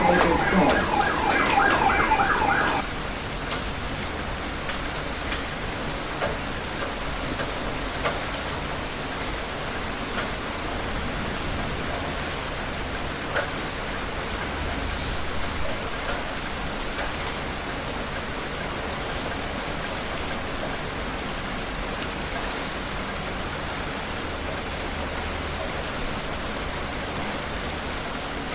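Steady heavy rain falling, an even wash with a few sharper drop hits. A wavering pitched sound rides over it at the start and stops about three seconds in.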